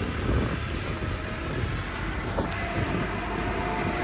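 Full-size diesel farm tractors running under load while levelling dirt, a steady low rumbling clatter; a thin steady higher note joins about halfway through.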